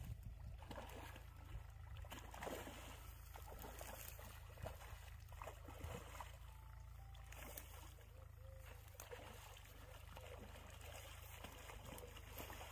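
Faint splashing and sloshing of a hooked rohu thrashing at the pond surface, scattered short splashes over a steady low hum.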